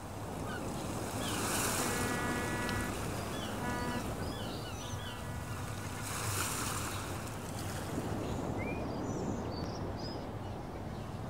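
Ocean surf washing in, with two swells, and birds chirping over it.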